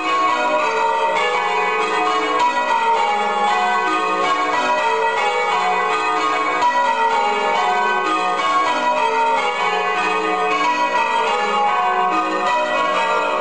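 A ring of six church bells rung in changes, one bell striking after another in an even, unbroken run of overlapping tones. The ringing is fair, though the middle bells sound slightly out of tune to the recordist.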